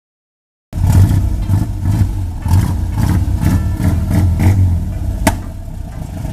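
Volkswagen Gol's engine running through an exhaust that is only a straight pipe with a JK muffler tip, giving a loud, deep rumble that swells and dips. It cuts in suddenly under a second in, and a single sharp click sounds about five seconds in.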